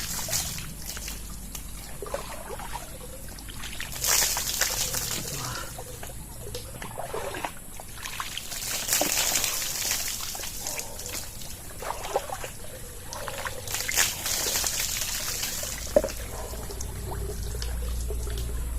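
Well water being poured over a person bathing, splashing down in repeated pours about every five seconds, with trickling and dripping in between.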